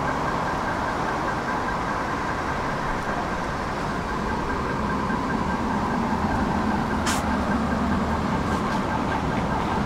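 Tram running with a steady high electrical whine over a low, even rumble, and one brief sharp click about seven seconds in.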